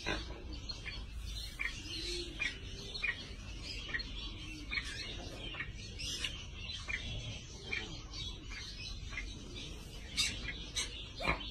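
Small cage birds in an aviary chirping over and over, about three short chirps a second, with a couple of sharper chirps near the end, over a low steady rumble.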